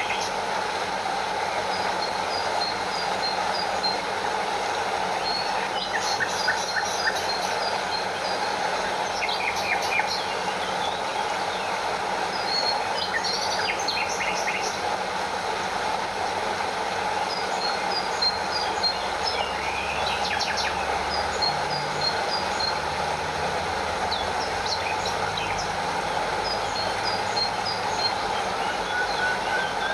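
Steady rush of a stream with a small waterfall, water flowing and splashing without a break, with short bird chirps now and then above it.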